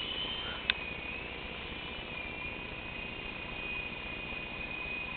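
E-flite Blade mini RC helicopter in flight: a steady high whine of its electric motors and rotors, dipping slightly in pitch about a second in. A single sharp click comes just before the dip.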